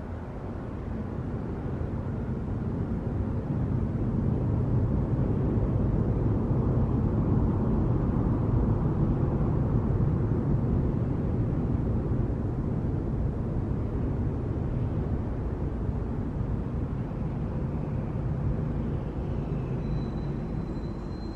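Airplane on its landing approach, a low rumble that swells over several seconds, peaks around the middle and slowly fades.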